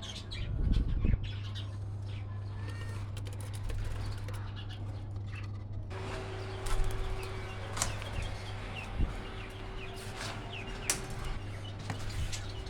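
Small pet parrots flapping their wings in a short flurry about a second in, followed by scattered short chirps and clicks over a steady low hum.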